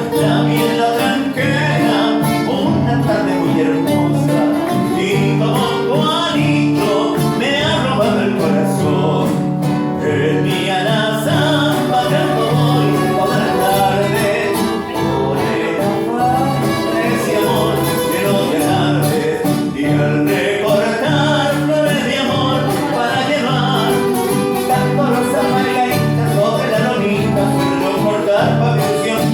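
Acoustic string ensemble of guitarrón, guitar and requinto playing live, with a steady plucked bass line on the guitarrón under strummed and picked guitar lines.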